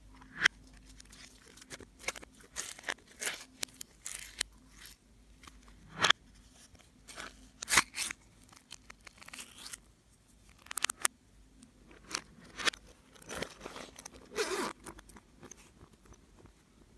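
Slime being worked by hand, with irregular sticky clicks, crackles and small pops.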